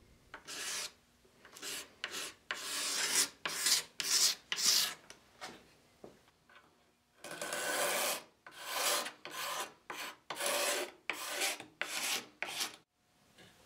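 Hand scraper drawn over oak table legs, scraping off a brittle old finish: repeated short scraping strokes in two runs, with a pause about six seconds in.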